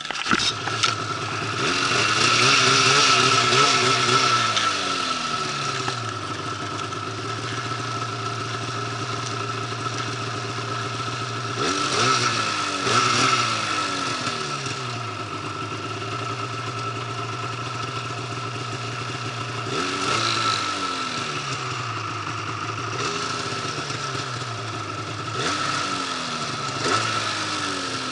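Arctic Cat snowmobile engine running under way in deep snow, revving up and easing back several times, with a steady high whine throughout.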